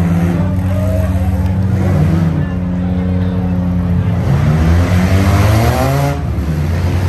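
Several demolition derby cars' engines running hard together in a dirt arena. About four seconds in, one engine revs up with a rising pitch, then drops off suddenly about six seconds in.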